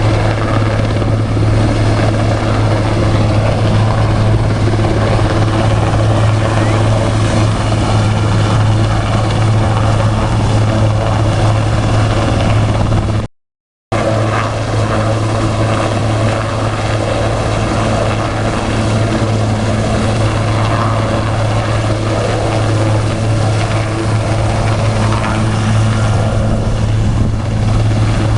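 Water-bombing helicopter's rotor running steadily, with a strong low beat. The sound drops out completely for about half a second midway.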